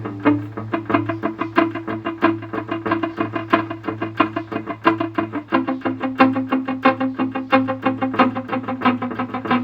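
Electric guitar played through a Line 6 DL4 delay pedal: a dense stream of quick picked notes over a steady low note. This is a sound test of the pedal after repair.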